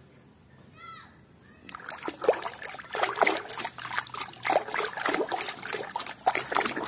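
A hand swishing a muddy plastic toy animal through a bucket of muddy water, with splashing and sloshing that starts about two seconds in and goes on in quick irregular strokes.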